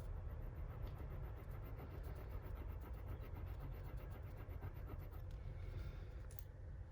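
Faint small clicks and rustles of a jewellery chain and clasp being handled, over a steady low hum.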